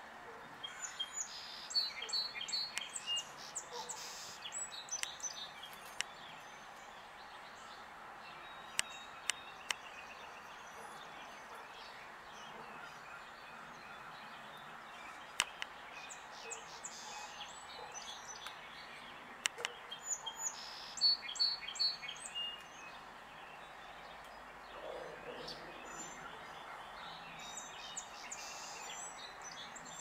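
Small songbirds chirping in quick high-pitched bursts: a run about a second in, another around the middle, and more near the end, over steady background noise.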